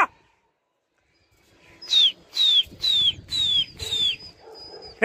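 A run of five sharp animal calls about a third of a second apart, each falling slightly in pitch, starting about two seconds in. A crow caws once at the very start and again right at the end.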